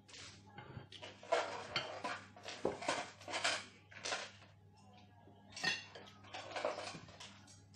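Cutlery and a plate clattering and scraping in a run of short, irregular bursts.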